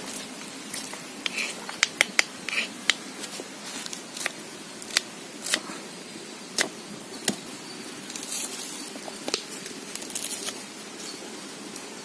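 Kitchen knife chopping red onion on a small wooden cutting board: sharp, irregular knocks of the blade hitting the board, about one or two a second, with a quick cluster about two seconds in.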